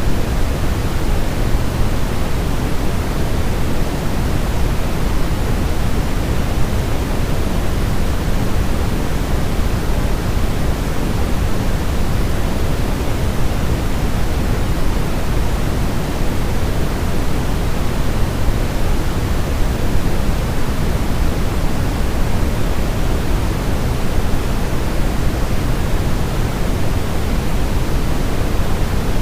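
Steady sleep-aid white noise for calming a baby, an even rushing hiss weighted toward the low end, with no change in level.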